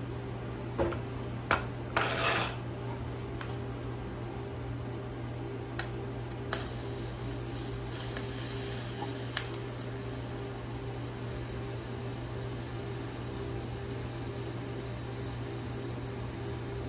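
Light metal clinks as the TIG torch and filler rod are set against the steel bracket. About six and a half seconds in, the TIG welding arc strikes with a sudden hiss and then burns quietly and steadily over the welding machine's constant low hum.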